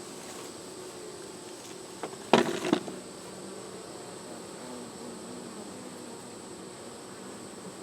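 Honey bees buzzing steadily around an open hive, with a few sharp knocks a little over two seconds in.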